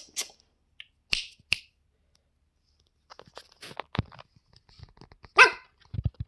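Small dog's movements: scattered light clicks and scuffs, with one brief louder sound about five and a half seconds in.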